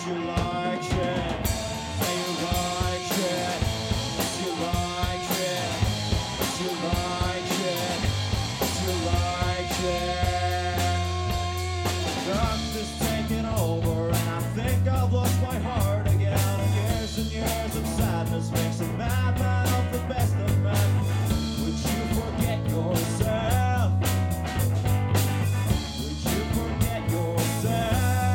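Rock band playing an instrumental passage live: electric guitar lines with gliding, bent notes over bass guitar and a drum kit. About twelve seconds in the drums and cymbals get busier and the band plays fuller and louder.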